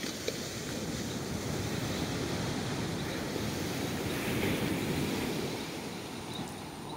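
Ocean surf washing onto the beach, swelling to a peak about four to five seconds in and easing off, with wind on the microphone.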